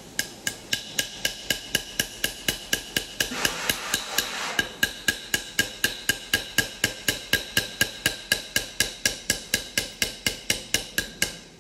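A small hammer tapping steadily, about four strikes a second, each with a short metallic ring, as it drives a night sight sideways into the pistol slide's dovetail.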